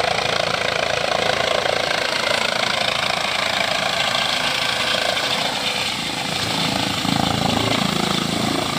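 Helicopter descending to land, its rotor and turbine engine running steadily.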